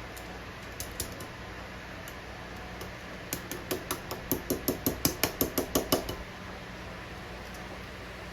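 Light metal-on-metal tapping on engine parts: two single clicks, then a quick run of taps at about five a second for nearly three seconds.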